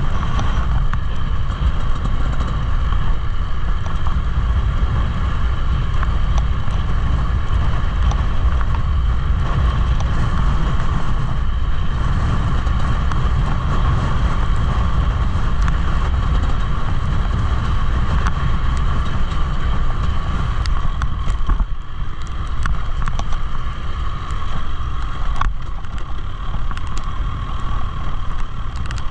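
Dirt bike engine running at a fairly steady pitch, with heavy wind rumble on the microphone.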